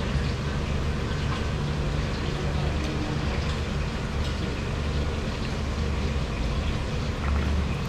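Steady low rumbling background noise, even in level throughout, with a few faint clicks.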